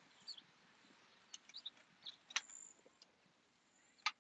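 Near silence: quiet outdoor background with a few faint, brief high chirps and a couple of short clicks.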